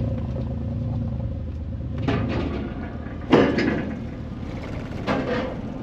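Mercedes G-Class engine running at crawling speed with a steady low rumble. A few clunks and knocks come as it rolls over the steel ferry ramp onto the car deck, the loudest about three seconds in.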